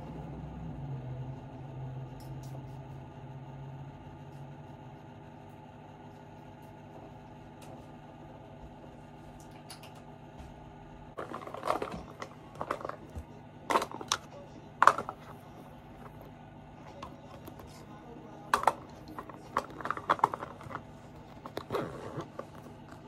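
A fabric cosmetic bag being handled: from about halfway in, a string of sharp clicks and rustles, over a steady faint hum.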